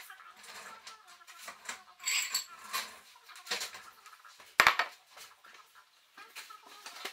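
Kitchen clatter of dishes and utensils being handled: scattered clinks and knocks, with one sharp knock a little past halfway.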